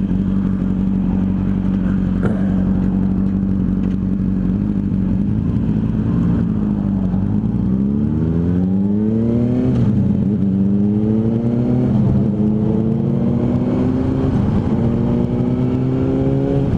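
Honda CBR600RR sport bike's inline-four engine, heard on the rider's helmet or bike mic with wind noise. It holds steady at cruise for about five seconds, then eases off. It then accelerates hard through several upshifts, the pitch climbing and dropping back at each gear change.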